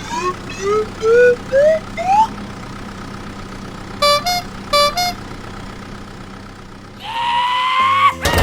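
Cartoon toy-vehicle sound effects over a steady engine hum. First come five quick rising whistle-like glides, each pitched higher than the last. About halfway through a horn beeps twice, then a longer horn blast sounds near the end.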